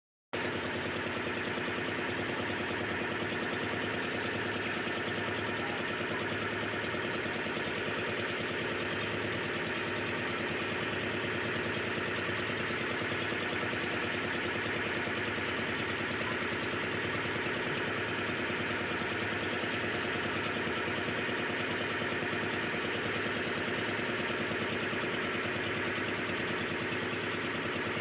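Small motorboat's engine running steadily at an even pitch, with no change in speed.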